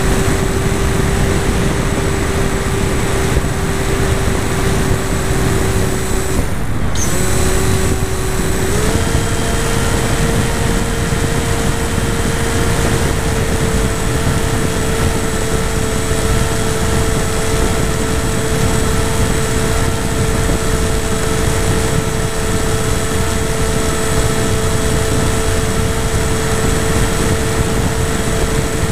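An FPV model airplane's motor and propeller give a steady whine over heavy wind rush. The motor cuts out for about half a second around seven seconds in, then comes back and steps up to a higher pitch a couple of seconds later, as the throttle is opened.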